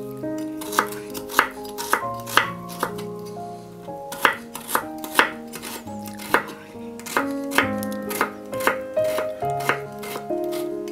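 Chef's knife chopping carrot on a wooden cutting board: irregular sharp knocks of the blade striking the board, several in quick clusters, over background music.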